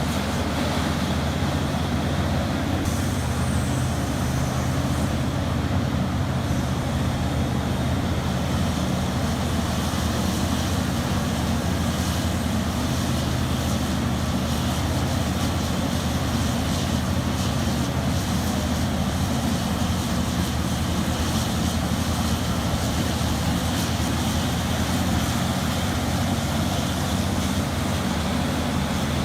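Large diesel engine of a heavy machine running steadily at a constant, even pitch.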